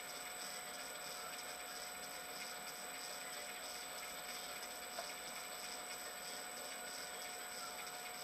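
Small metal lathe running, heard faintly and muffled through a sealed camera housing: a steady hiss with a thin constant whine.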